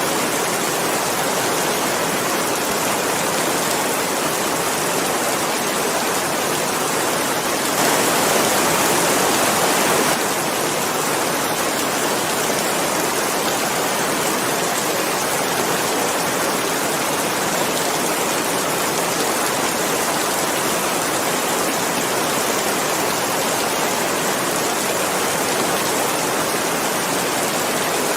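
Steady heavy rain, a dense even hiss, swelling briefly louder for about two seconds some eight seconds in.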